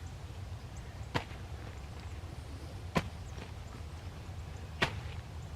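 Pickaxe striking into rain-soaked garden soil three times, about two seconds apart, each a short, sharp thud.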